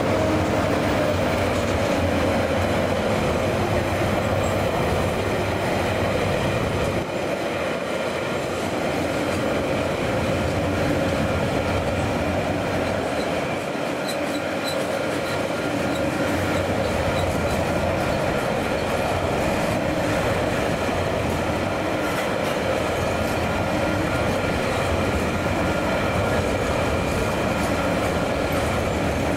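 Container freight train's wagons rolling past at close range: a steady rumble and rattle of steel wheels on the rails.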